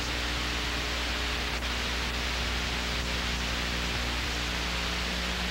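Steady tape hiss with a low electrical hum and its overtones, the empty soundtrack of an old VHS home recording, with a couple of faint ticks about one and a half to two seconds in.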